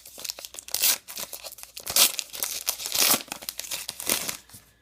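Crinkling and tearing of a baseball card pack's wrapper being handled and ripped open, in irregular rustling bursts with the loudest about two and three seconds in.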